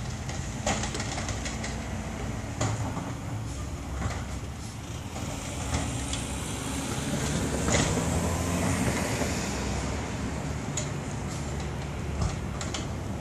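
Engine of an Amrep-bodied recycling truck running steadily down the street, getting a little louder about halfway through, with scattered sharp knocks and clatters.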